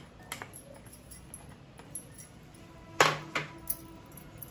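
Chopped onions being scraped from a ceramic bowl into a glass mixing bowl with a spatula, with a few light taps and then a sharp, ringing clink of kitchenware about three seconds in, followed by two smaller clinks.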